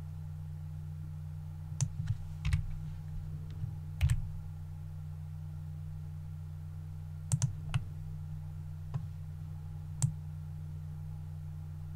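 Scattered clicks of a computer mouse and keyboard, about seven at irregular intervals, over a steady low electrical hum.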